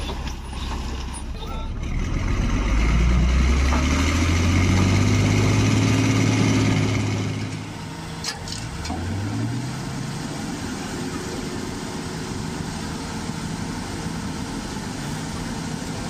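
Loaded sand truck's diesel engine revving under load, its pitch climbing and then held for about five seconds. From about eight seconds in, a small river ferry's diesel engine speeds up and then runs steadily, with its propellers churning the water.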